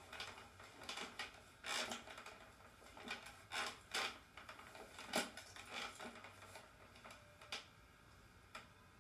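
Scattered, uneven taps and clicks of fingers on a laptop keyboard, with one sharper click about five seconds in, thinning out near the end.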